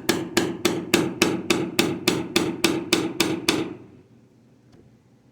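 A hammer striking a wood chisel in fast, even blows, about five a second, chopping it straight down into the end grain of a finger joint's waste. Each blow rings briefly, and the blows stop a little after halfway through.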